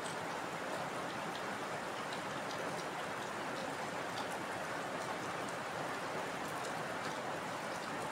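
Heavy rain falling steadily, an even hiss of rainfall with scattered individual drops ticking through it.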